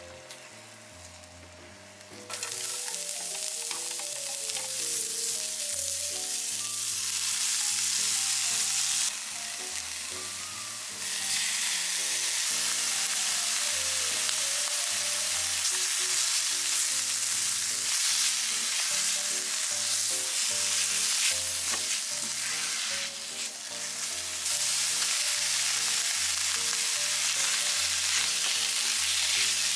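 Julienned carrots and tuna sizzling as they are stir-fried in oil in a frying pan, with a spatula stirring. The sizzle starts loud about two seconds in, after a quieter start. Light background music plays underneath.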